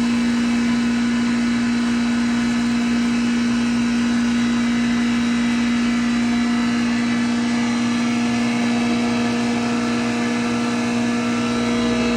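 Wheat bran grinder machine running at a steady speed: a constant, even hum with no change in pitch or level.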